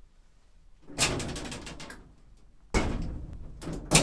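Collapsible metal lattice lift gate being slid shut, rattling: one loud clattering pull about a second in, another near three seconds, and a sharp clang near the end.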